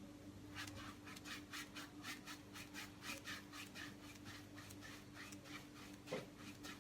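Paintbrush scrubbing back and forth on a canvas, blending acrylic paint: a faint run of quick, even strokes, about four or five a second, that stops about five seconds in.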